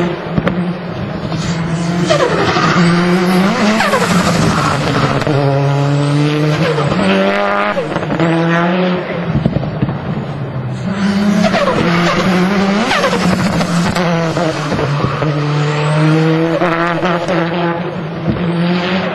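Engine of a 700 PS Lancia Delta HF Integrale race car driven hard, its pitch repeatedly climbing under acceleration and dropping at gear changes and lift-offs, with sharp cracks in between.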